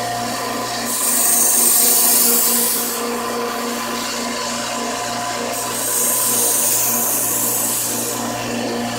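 Motorised knife sharpener running with a steady hum while a knife blade is drawn across its abrasive twice. Each pass is a hissing grind about two seconds long, about a second in and again about six seconds in.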